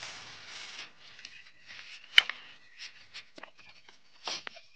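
Wood campfire crackling: scattered small pops and ticks, with one sharp pop about two seconds in.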